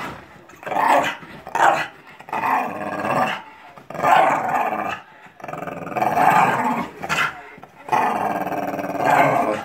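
Staffordshire bull terrier growling in a run of about six drawn-out bouts with short pauses between them, the later bouts lasting over a second.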